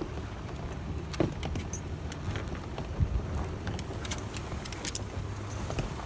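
Truck driving slowly over a rough dirt road, heard from inside the cab: a steady low engine and tyre rumble with scattered small rattles and clicks and a couple of dull bumps.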